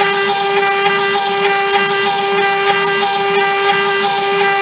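CNC router spindle running with a small end mill carving the relief of a stamp into a plastic block. It makes a steady high whine over the hiss of cutting.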